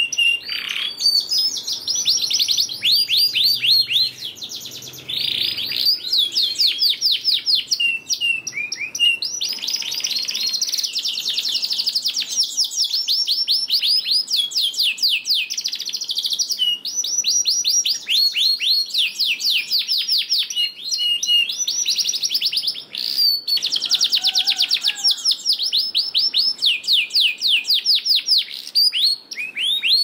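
Domestic canary singing a long, continuous song of rapid trills: fast runs of repeated notes sweeping downward, with some held whistled notes and a few brief breaks.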